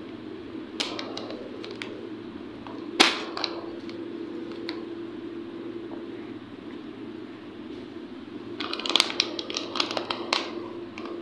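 Crisp crackling of Kurkure snacks being handled, in scattered bursts: a sharp crack about three seconds in and a dense cluster of crackles near the end. A steady low hum runs underneath.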